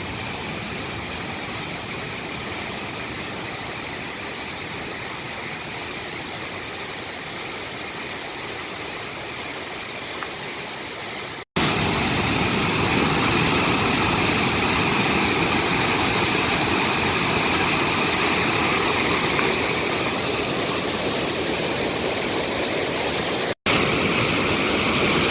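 Rain-swollen mountain stream rushing, a steady noise of fast water. It cuts off abruptly about eleven seconds in and comes back louder, with another brief cut near the end.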